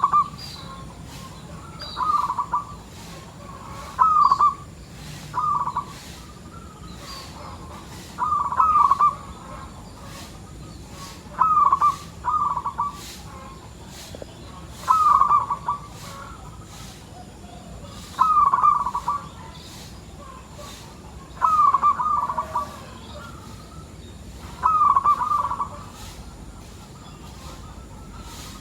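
Zebra dove cooing in full song: a short rolling phrase repeated about every three seconds.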